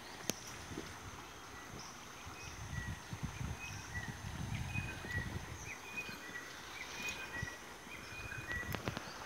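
Sharp clicks and taps of dogs' claws and footsteps on a metal-mesh suspension bridge walkway, over a low rumble. From about three seconds in, short high bird chirps repeat.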